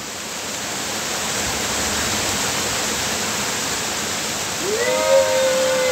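Small waterfall of creek water pouring down the bank into the stream, a steady rushing. Near the end a voice gives one drawn-out call, rising at the start and falling away after about a second and a half.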